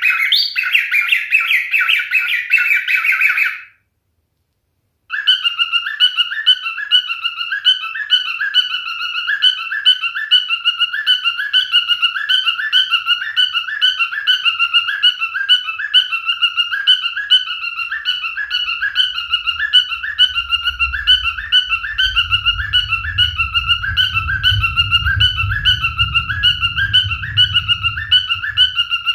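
Male cockatiel chirping and warbling, broken by a gap of dead silence about four seconds in. After the gap come steady, evenly repeating whistled chirps, with a low rumble underneath in the second half.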